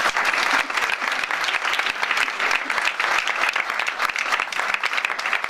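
Theatre audience applauding steadily, many hands clapping at once, welcoming a guest onto the stage.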